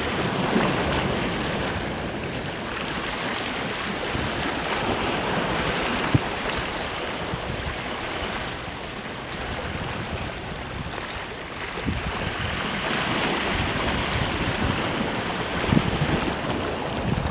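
Small sea waves washing and splashing against shoreline rocks, swelling and easing, with wind buffeting the microphone. A single brief knock about six seconds in.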